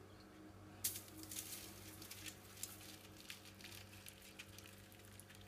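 Hot water poured from a kettle into a foil-lined dish, starting suddenly about a second in: a faint splashing with many small sharp ticks as the water lands on the crumpled aluminium foil.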